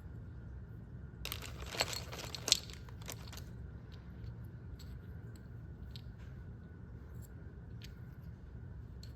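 Small hard accessories and their packaging being handled during a keyboard unboxing: a short burst of rustling and clicking with two sharp clacks about two seconds in, then a few faint taps, over a steady low hum.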